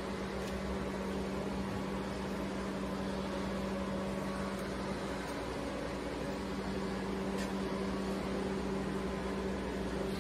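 Steady machine hum from powered-up workshop machinery: one constant low tone with fainter overtones over a noise bed, holding level without change.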